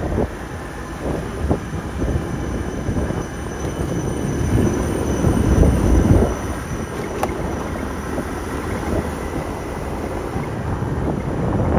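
Wind buffeting the microphone on a moving motor scooter, with the scooter's engine running underneath; the noise swells about halfway through.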